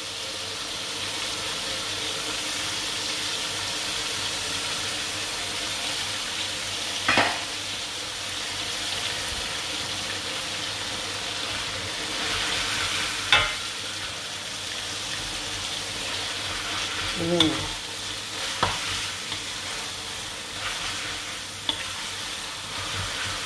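Soy-sauce and sambal mixture sizzling steadily in a hot wok while rice vermicelli is stirred and tossed through it with a wooden spatula, with a few short knocks of the spatula against the wok.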